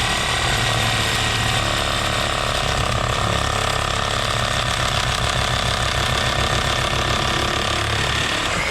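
Power saw running steadily at full speed while cutting through a small tree, with a fast, even rattle.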